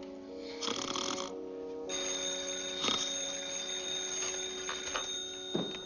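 A period candlestick telephone's bell ringing steadily over background music, starting about two seconds in. Just before it there is a short snore from a sleeper.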